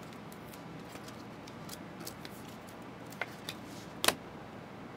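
Trading cards and foil packs being handled: scattered soft clicks and taps, the sharpest about four seconds in.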